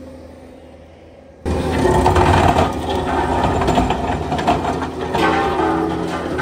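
A skid steer running its hydraulic rotary soil-conditioner attachment through rocky ground, as a dense mechanical grinding noise. It cuts in suddenly and loudly about a second and a half in, after a quieter start.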